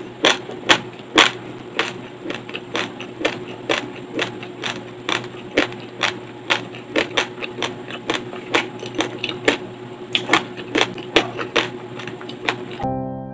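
Raw long-grain rice crunched between the teeth close to a clip-on microphone: sharp, irregular cracks, about two to three a second. Piano music starts near the end.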